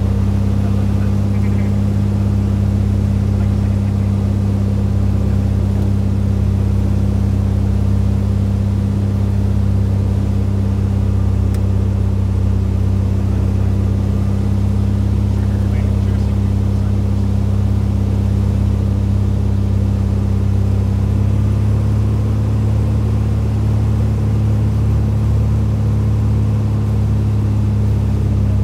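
Cessna 210's six-cylinder piston engine and propeller droning steadily inside the cockpit on final approach to landing. The pitch edges slightly higher about two-thirds of the way through.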